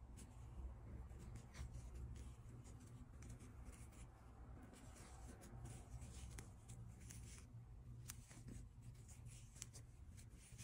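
Faint rustling and light scratchy ticks of a metal crochet hook pulling yarn through stitches, over a low steady hum.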